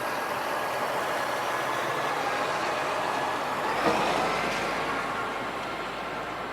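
A vehicle's steady running noise that swells to a peak about four seconds in, as if passing close, and then slowly fades.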